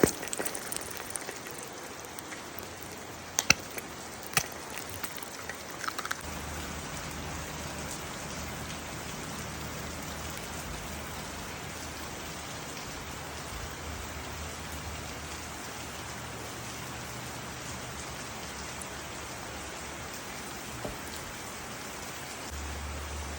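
Steady rain falling, an even hiss, with a few sharp clicks in the first six seconds. A low steady hum joins about six seconds in.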